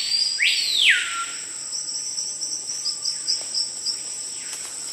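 Tropical forest recording: a steady high, shrill chorus of insects, with birds whistling over it. Two loud calls sweep up and back down in pitch about a second in, and fainter calls follow.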